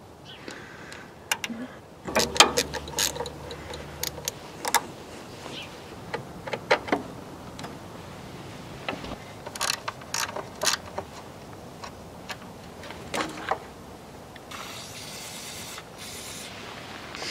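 Hand tools clicking and clinking on metal as a tractor starter solenoid's terminal nuts are undone and the solenoid is unbolted. Near the end comes a short hiss of aerosol spray.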